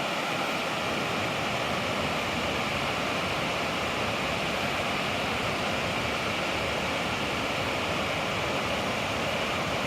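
Waterfall rushing: a steady, even sound of falling water that does not change.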